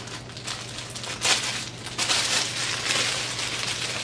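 Clear plastic packaging crinkling as a bagged hair bundle is handled, with louder crackles about a second in and again around two seconds in. A faint steady low hum sits underneath.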